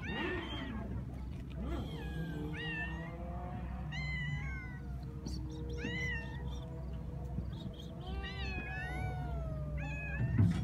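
A cat meowing repeatedly in short, pitch-bending calls, roughly one every one to two seconds.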